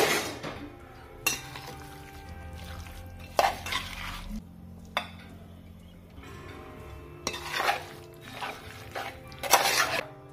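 A stainless steel spoon stirring and scraping thick chicken masala in a heavy black pot, in several short bouts of scraping, the loudest near the end.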